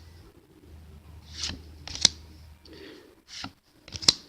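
Pokémon trading cards being slid and flipped through by hand, a handful of short, crisp swishes as one card is moved behind the next.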